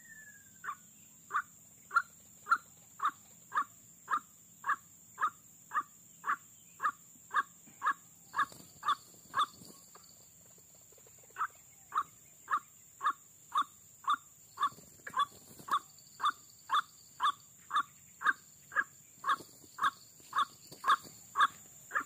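White-breasted waterhen calling: a monotonous run of short, evenly repeated notes, about two a second. It breaks off for about two seconds near the middle, then resumes. This is the ruak-ruak call used as a lure for trapping the bird.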